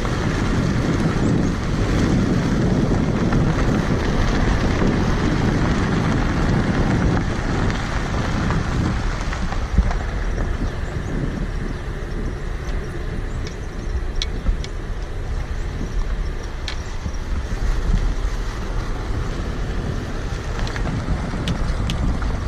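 Car driving over a rough dirt track, heard from a camera mounted on the outside of the body: a steady rumble of engine and tyres with wind buffeting the microphone. It is louder for the first several seconds, and a few sharp knocks come through later on.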